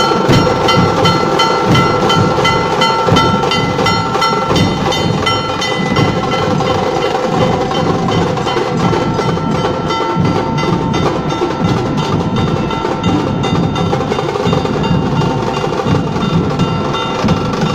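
Nashik dhol drumming: big dhol drums and tasha beaten in a fast, dense rhythm, with a steady metallic ringing tone over the beat, strongest in the first half.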